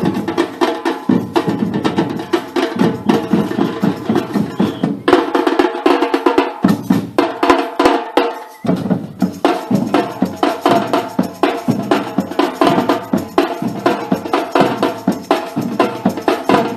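Percussion-driven music: fast, busy drumming with many strokes a second over steady pitched notes.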